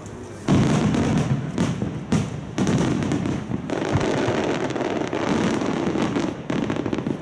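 Aerial fireworks going off in a rapid barrage of shell bursts and crackle. It starts suddenly about half a second in and continues as a dense run of overlapping bangs and rumbling.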